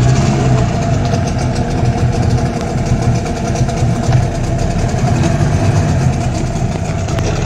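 Suzuki 15 hp outboard motor running steadily just after starting, on a test run after its gearbox gears were replaced.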